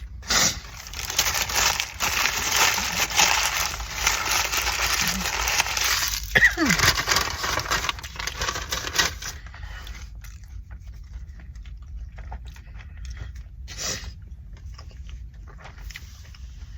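Close-up eating sounds: dense crackling and crunching for about nine seconds, with a short falling squeak about six and a half seconds in, then quieter scattered clicks and crunches.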